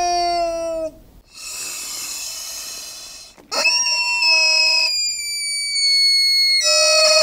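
Giant rubber chicken squawking: a long squeezed scream that slides slightly down in pitch and stops about a second in, a breathy wheeze as the chicken draws air back in, then a second, higher scream from about three and a half seconds in that slides slowly down.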